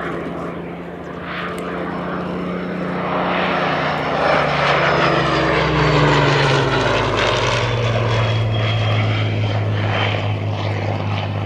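Supermarine Spitfire LF Mk.Vb's Rolls-Royce Merlin V12 engine and propeller in a flypast. It grows louder to a peak about halfway through as it passes overhead, then its pitch drops as it goes away.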